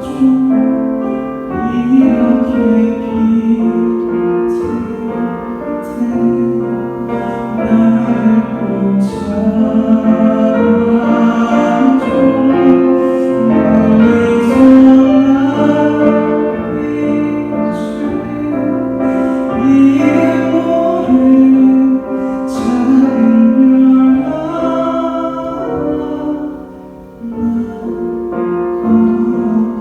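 Male voice singing a slow ballad over piano accompaniment.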